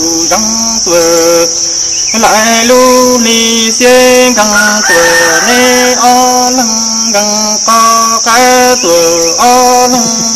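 Hmong kwv txhiaj sung poetry: one voice chanting in long held notes that step up and down between a few pitches, over a steady high insect drone.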